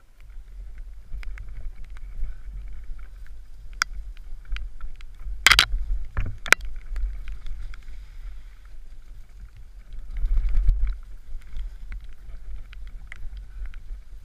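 Mountain bike running fast down a rough forest trail: steady low wind rumble on the microphone with the bike's rattles and knocks over the ground, a few sharp hard impacts around five and a half to six and a half seconds in, and a louder rumble a little past ten seconds.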